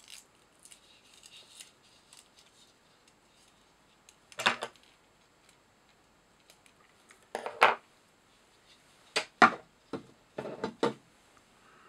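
Fly-tying scissors and a spool of monofilament line being handled: a few short, sharp clicks and snips, the first about four seconds in, then several in quick pairs near the end.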